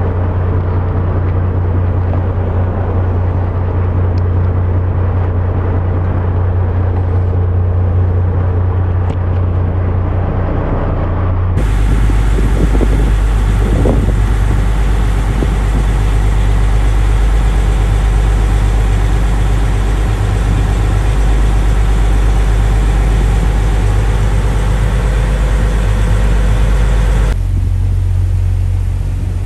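Yacht's engines running with a steady low hum while the boat lies at the dock. About twelve seconds in it gives way to the steady rumble of the boat underway, a deeper drone with a broad rushing noise over it, which changes back near the end.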